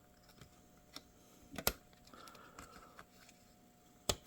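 A few sharp plastic clicks and taps as the cover over the laptop's memory slots is pried up with a fingernail, the loudest about a second and a half in and another near the end.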